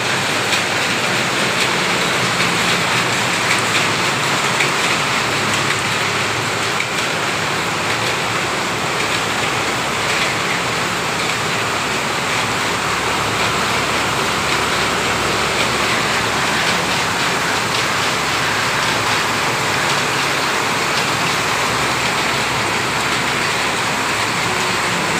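Yarn-winding machinery in a textile mill running: a steady, even wash of mechanical noise with no distinct knocks or changes.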